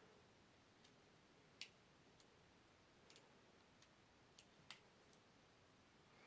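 A few faint, sharp clicks of small metal lock parts and tools being handled while springs and drivers are loaded back into a Schlage Everest 29 lock core, with near silence between them. The loudest click comes about one and a half seconds in.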